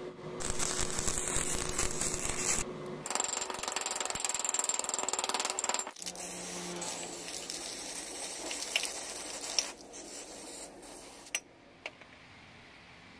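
Workshop tool noise in several short, abruptly cut segments: a steady hiss from about half a second in, a louder steady rushing noise with a high whine from about three to six seconds, then calmer steady noise that drops away near the end.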